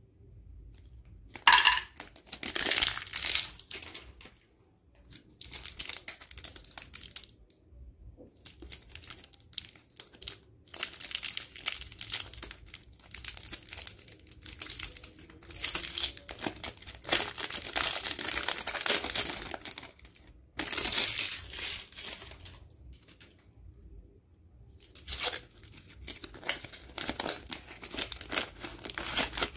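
Chocolate bar wrappers being torn open and crinkled by hand: plastic wrapper and gold foil rustling in irregular bursts with short pauses between. A sharp snap about a second and a half in is the loudest sound.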